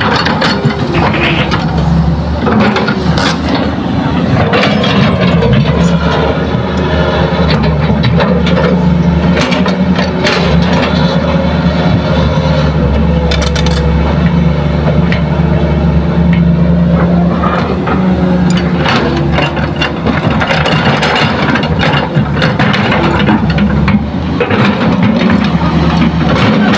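Hitachi hydraulic excavator's diesel engine running steadily under working load. Scattered cracks and scrapes come from the bucket as it digs soil and drops it into a dump truck bed.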